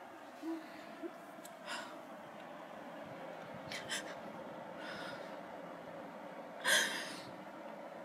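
A woman crying quietly, sniffing and gasping for breath in a handful of short sharp intakes, the loudest near the end.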